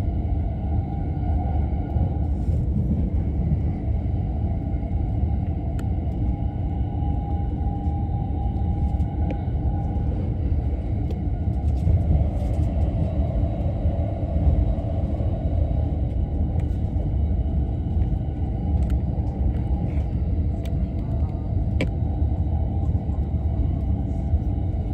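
Tokaido Line commuter train running, heard from inside the carriage as a steady low rumble of wheels on the track. About halfway through, another train passes close alongside and the sound briefly swells.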